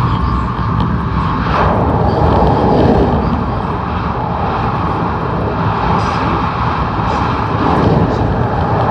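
Tokaido Shinkansen running at speed, heard from inside the passenger cabin: a steady low rumble with a rushing of air and wheels on rail that grows louder about a second and a half in.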